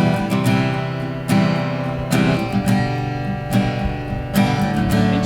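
Acoustic guitar strumming chords in a steady rhythm, one chord stroke about every second.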